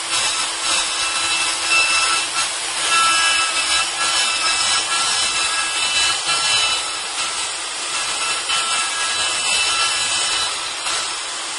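Kress milling motor held by a robot arm running at high speed while its bit mills round pockets into a block: a steady high whine over the hiss of cutting, the loudness rising and dipping as the bit moves through the material.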